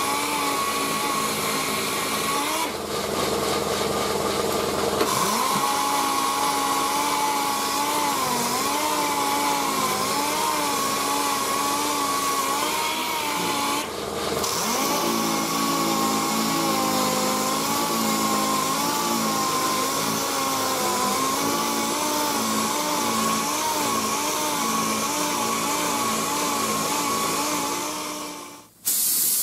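Pneumatic random-orbital (DA) sander running on body filler over a truck's wheel arch: an air hiss with a whine that wavers up and down in pitch. It dips briefly a few seconds in and again about halfway, and it stops just before the end.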